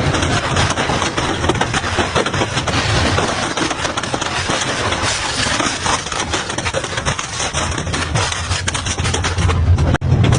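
Double-shaft industrial shredder running under load: a steady low hum beneath dense, continuous crunching and cracking.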